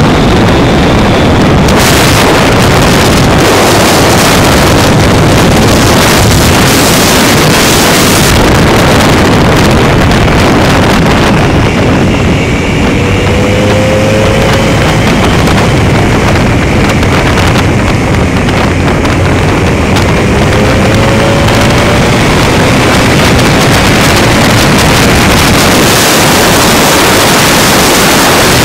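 Heavy wind buffeting a cellphone microphone on a moving Honda motorcycle, with the bike's engine running under it; the pitch of the engine rises briefly twice.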